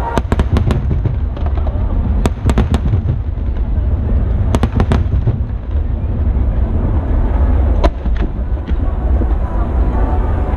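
Aerial fireworks bursting, with three bunches of sharp crackles in the first five seconds over a continuous deep rumble.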